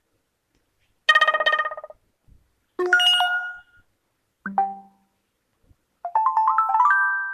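UMX phone notification tones played one after another with short silences between: a chime about a second in, another about three seconds in, a short blip a little later, and near the end a quick rising run of notes.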